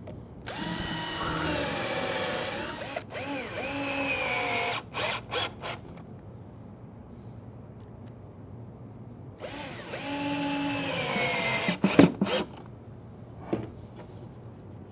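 Cordless drill pre-drilling screw holes in the corners of a wooden drawer box: two runs of motor whine, the first about four seconds long and the second about three, the pitch rising and falling with the trigger.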